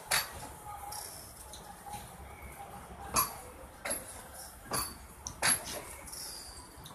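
Train 18 (Vande Bharat Express) electric trainset rolling slowly past, its wheels giving a series of sharp clacks over the rail joints, some in pairs less than a second apart.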